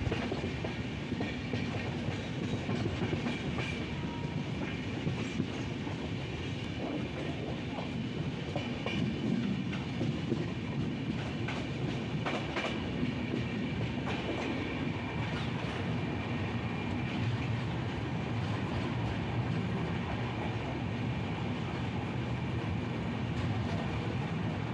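Indian Railways passenger coach running on the track, a steady rumble with wheels clicking over rail joints, heard through an open coach window as the train draws slowly into a station.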